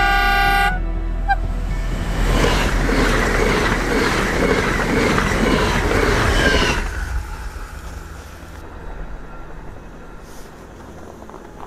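PKP Intercity ED161 Dart electric multiple unit sounding its horn, which stops less than a second in. The train then rushes past at speed in a loud, rising roar of wheels and air that cuts off suddenly about seven seconds in, leaving a faint low rumble.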